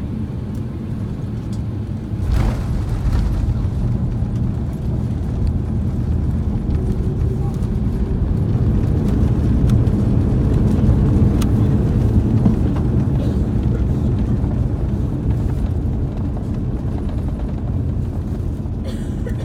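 Cabin noise of an Airbus A350-900 with Rolls-Royce Trent XWB engines rolling down the runway just after landing: a sudden knock about two seconds in, then a loud engine and rolling rumble that builds to a peak near the middle and eases off as the jet slows, typical of reverse thrust and braking on the landing roll.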